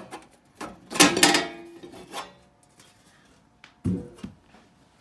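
Loose sheet-metal top cover of a power amplifier being lifted off: a loud metallic clang with a brief ring about a second in, then a duller thump near four seconds.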